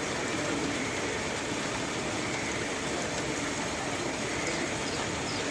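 Steady, even rush of heavy rain mixed with road-vehicle noise. A few faint, short high chirps come near the end.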